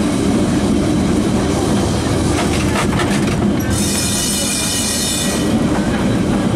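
Lisbon electric tram running along its street rails, heard from inside the cab: a steady low rumble with a few clacks. A high-pitched wheel squeal starts about three and a half seconds in and lasts under two seconds.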